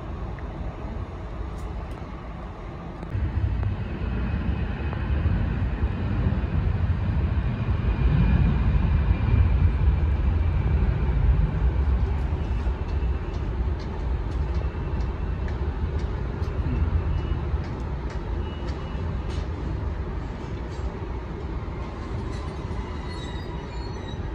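Distant jet airliner engines at takeoff power: a deep rumble that swells about three seconds in and slowly fades, with a faint high whine above it.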